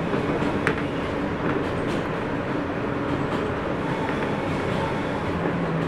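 New York City subway N train running on the elevated track, heard from inside the car: a steady rumble of wheels on rail with a faint hum and a few sharp clicks over the rail joints.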